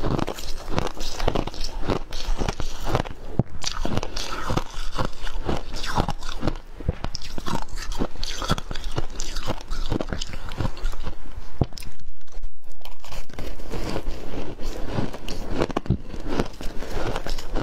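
Ice chunks coated in matcha powder being bitten and chewed: a fast, uneven run of crisp crunches, with a short lull around the middle.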